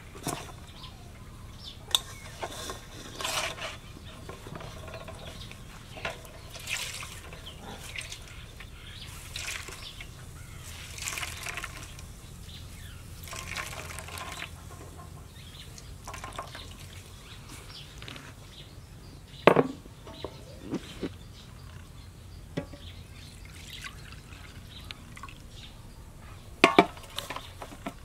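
Coconut milk being squeezed by hand from grated coconut in a cloth, splashing and dribbling into a metal bowl in short bursts every second or two. Two sharp knocks stand out, one about two-thirds of the way through and one near the end.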